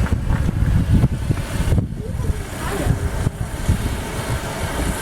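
Wind gusting across the microphone, a loud, uneven low rumble that rises and falls.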